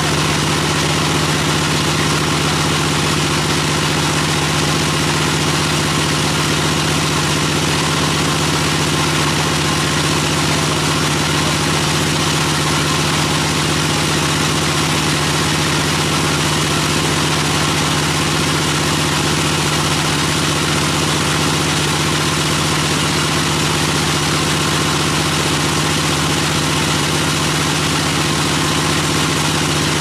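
A band sawmill running steadily while its blade cuts lengthwise through a teak log: a constant loud machine drone with a steady low hum under a hissing wash of noise.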